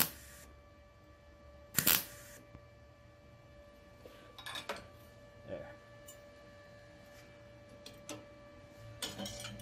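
MIG welder striking short tack welds on steel: a brief crackling burst of arc right at the start and another about two seconds in. Between and after them come faint clicks and taps of metal being handled, over a steady low hum.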